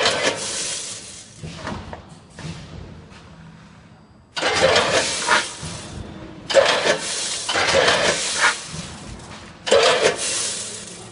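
Rice grains rushing through the stainless steel hoppers of a multihead weigher on a rice packing machine. The rice comes in four sudden rushes a few seconds apart, each dying away over a second or two, over a low machine hum.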